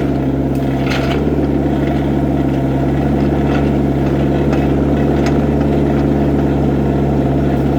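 Excavator's diesel engine running steadily at a constant pitch, with a few faint clicks over it.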